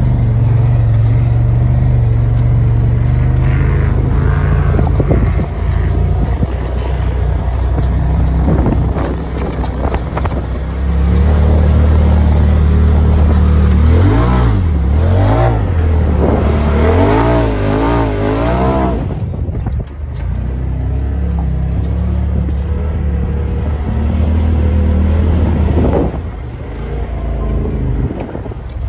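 Off-road ATV or side-by-side engine running under way, heard from on board. About halfway through, the revs rise and fall several times in quick succession.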